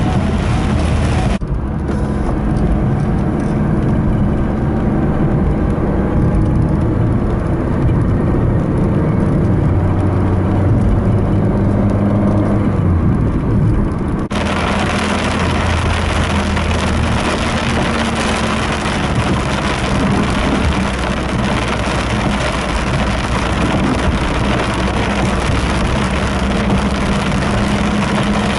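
Inside a car driving in heavy rain: the engine runs steadily under a loud hiss of rain and wet road. The hiss drops away suddenly just after a second in and returns just as suddenly about halfway through.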